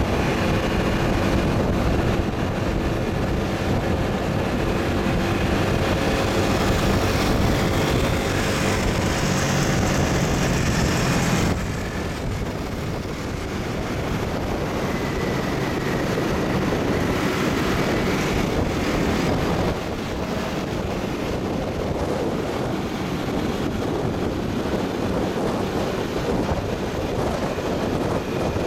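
Steady wind rushing over the microphone of a handheld camera on a moving motorcycle, with engine and road noise underneath. About twelve seconds in, the sound drops and turns duller.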